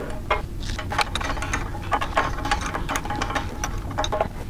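Hand tool working the nuts that hold a belt grinder's tracking and tensioning assembly to its frame: a rapid, irregular run of metal clicks and rattles, like a ratchet wrench.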